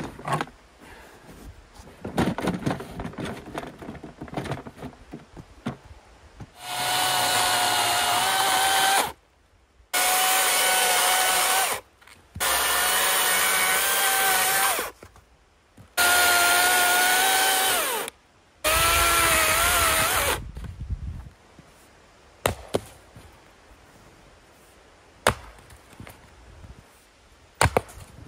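Cordless DeWalt chainsaw cutting through logs in five runs of about two seconds each, stopping fully between cuts, with its whine dropping in pitch as the last cut ends. A few sharp, separate knocks of an axe splitting wood follow near the end.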